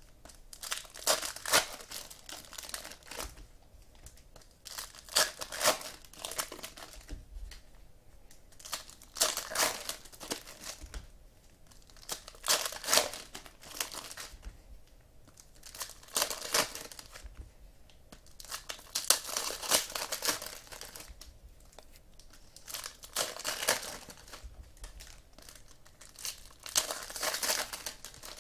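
Foil trading-card pack wrappers crinkling and tearing as football card packs are torn open and handled, in clusters of crackling every second or two.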